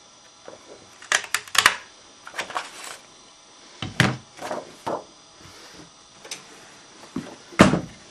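Martha Stewart lace edge punch clacking as it cuts a lace border into cardstock, a quick run of sharp clicks about a second in. After it come several knocks and thumps of the punch and paper being handled and set down on the tabletop, the loudest near the end.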